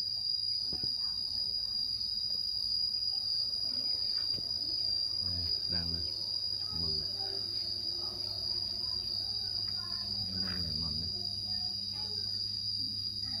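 Insects singing: one steady, high-pitched continuous trill that never breaks, over a faint low hum.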